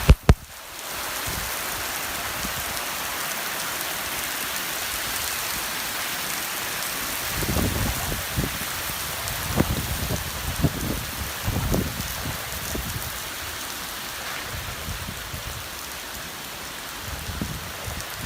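Heavy rain pouring down during a storm as a steady hiss, with a sharp click right at the start and irregular low rumbles about halfway through.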